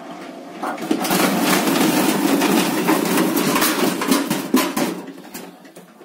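Front-loading washing machine tumbling a load of wet, shredded paper: water sloshing and churning in the drum with a fast patter of small knocks. It starts about a second in and fades away near the end.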